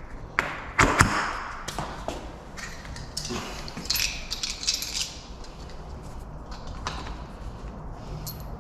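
Metal deadbolt lock hardware clicking and knocking as it is handled and fitted to a door: two sharp knocks about a second in, then scattered lighter metallic clicks and rattles.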